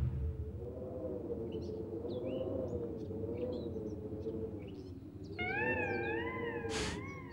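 Cartoon soundtrack effect: a slowly wobbling, wavering tone with short high chirps scattered through it. A second, higher wavering tone joins about five seconds in, and a brief hiss-like burst comes near the end.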